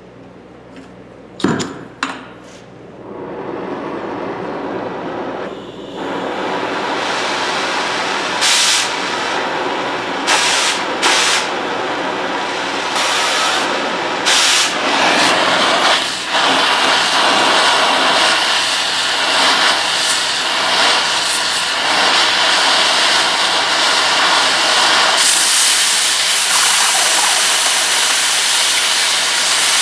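Oxy-acetylene cutting torch burning on steel with a loud, steady hiss that swells about three seconds in and grows louder again near the end, with several brief louder blasts in the middle. A sharp pop comes about a second and a half in.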